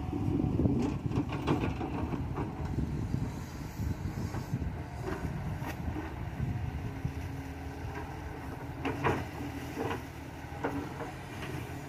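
KATO crawler excavator's diesel engine running steadily while it digs mud at the pond bank, with a few clanks of the bucket and arm about a second in and again near the end.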